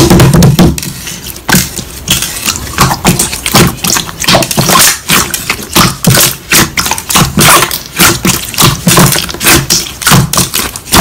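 Slime being squished and poked by hand, giving a quick run of crisp clicks and pops, a few a second; backing music cuts out within the first second.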